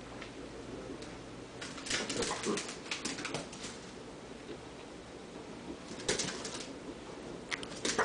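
A small dog's claws clicking and scrabbling on a hard kitchen floor as it darts and pounces after a spot of light. The scrabbling comes in two quick flurries, about two seconds in and about six seconds in, with another starting at the very end.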